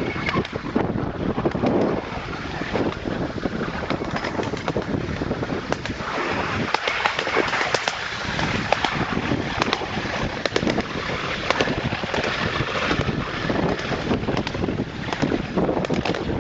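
Wheels of a pedal-powered recumbent rail vehicle rolling and rattling along a miniature railway track, with frequent sharp clicks and knocks. Wind buffets the microphone.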